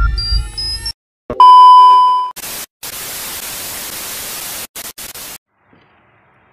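An electronic intro effect with rising tones ends about a second in. A loud steady test-card beep near 1 kHz lasts about a second, then TV static hiss runs for about three seconds with brief breaks and cuts off suddenly.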